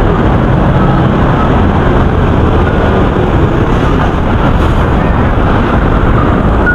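Steady, loud outdoor rumble with a hiss on top, heaviest in the low end, with no distinct events in it.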